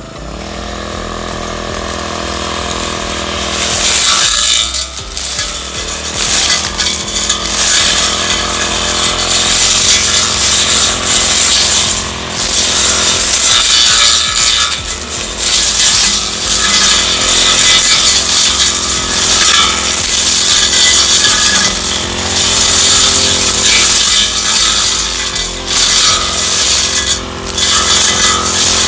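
Two-stroke brush cutter with a rectangular Pro Quip blade, revving up over the first few seconds, then running at high throttle as the blade slashes through tall grass and weeds. The engine eases off briefly a couple of times.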